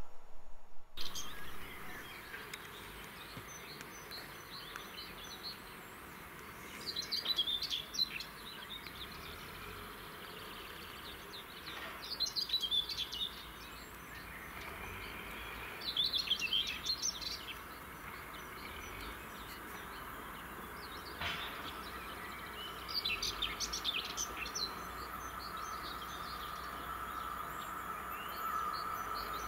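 Birds singing in short chirpy phrases every four to five seconds over a steady outdoor hiss. In the last several seconds a faint steady hum grows louder as an EU07 electric locomotive and its train approach.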